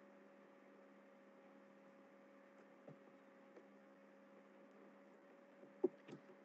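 Near silence: a faint steady electrical hum on the call's audio, with a few soft clicks, the sharpest just before the end, from a computer mouse advancing the slides.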